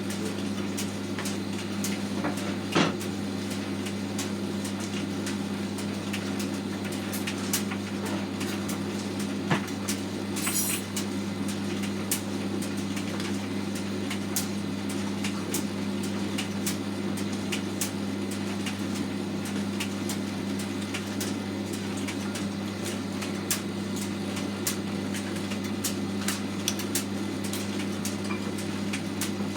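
Hotpoint FETV60 tumble dryer running, fitted with a new bearing: a steady motor-and-drum hum with scattered light clicks and knocks throughout.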